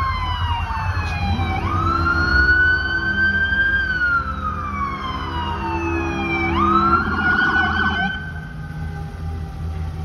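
Sirens of a fire engine, an ambulance and a police car sounding together, several overlapping wails that slowly rise and fall in pitch, with a fast yelp warble about seven seconds in. The sirens grow quieter after about eight seconds, leaving a low rumble.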